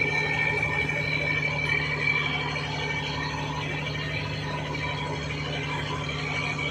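Fishing boat's inboard diesel engine running steadily under way while towing another boat: a constant low hum with a steady high whine on top.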